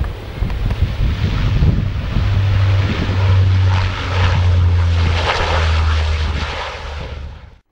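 Saab 340 twin-turboprop airliner rolling along the runway, its propellers giving a loud, steady low drone under the rush of the engines. The sound cuts off abruptly near the end.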